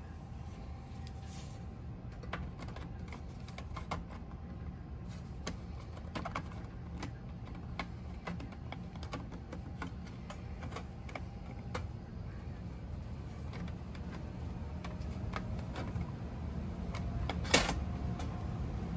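Push buttons on a 1988 Toyota AM/FM cassette car stereo being pressed, giving irregular short clicks, with one louder click near the end. A steady low hum runs underneath.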